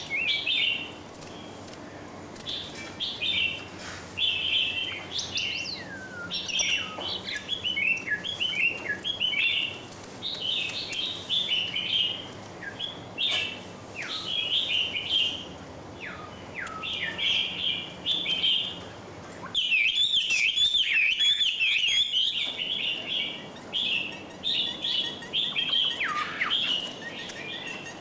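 Small songbirds chirping and twittering in quick repeated notes, many short calls overlapping. About twenty seconds in there is a louder stretch of a few seconds where the chirps crowd together.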